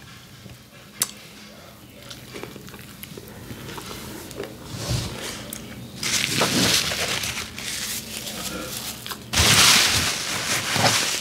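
Quiet chewing, then paper napkins rustling and being crumpled from about halfway through, loudest near the end. The napkins are thin and flimsy, ones the eater calls never worth buying again.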